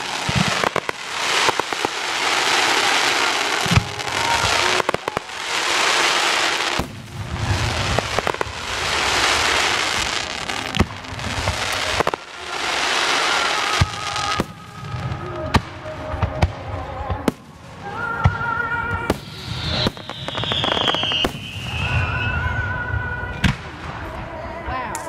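Aerial fireworks display: repeated sharp bangs of bursting shells and deep booms, with noisy crackling spells of a couple of seconds after the bursts. In the second half, high whistling tones join in, one gliding down in pitch about twenty seconds in.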